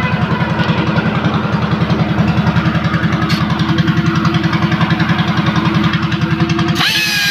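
A small engine running steadily at idle with a fast, even pulsing beat. Near the end it gives way abruptly to a high, steady whine.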